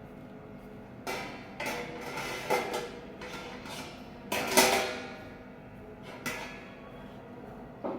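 Metal frying basket and its stand being handled, clanking together in six separate knocks with brief metallic ringing; the loudest knock comes about halfway through.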